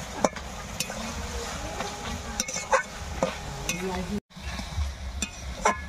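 Metal spatula stirring thick chalta pickle in a metal wok, scraping and clinking irregularly against the pan, with a light sizzle of frying underneath.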